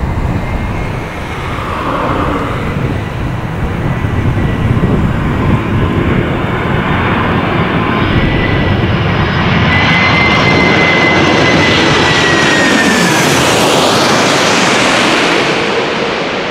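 McDonnell Douglas MD-11 trijet on low final approach: jet engine noise building as it nears, with a thin high whine that drops in pitch as it passes overhead about two-thirds of the way in, then easing as it moves away.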